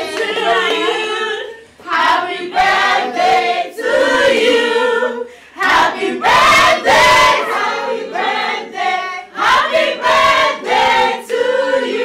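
A group of people singing together in short phrases, with hand claps.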